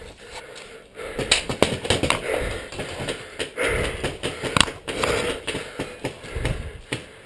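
A paintball player's heavy breathing and movement, the breaths swelling and fading about once a second. Scattered sharp clicks and knocks of gear run through it.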